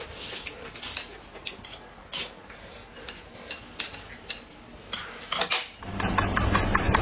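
Chopsticks clicking and scraping against a metal platter and a porcelain plate in scattered sharp taps while food is picked out. Near the end a louder, steady backing with a regular beat comes in.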